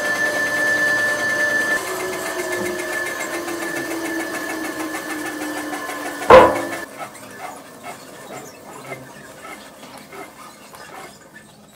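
Fur-ironing machine with a heated grooved roller running with a steady whine that sinks lower in pitch. About six seconds in comes one loud clunk, the loudest sound here. After it the whine stops and scattered clicks and rattles fade away.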